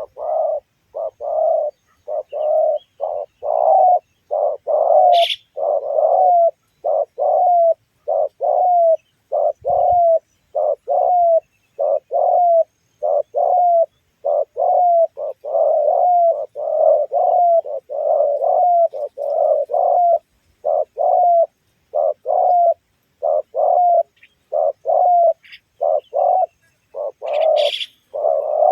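Spotted dove (tekukur) cooing in a long, steady run of short, evenly repeated coos with no break. Two sharp clicks cut in, one about five seconds in and one near the end.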